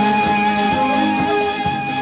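Live Egyptian popular band playing an instrumental introduction with no singing: a held melody line over strings, plucked guitar and a steady percussion beat.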